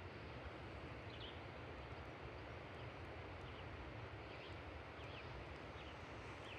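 Faint outdoor ambience: a steady background hiss with a few faint, short bird chirps scattered through it.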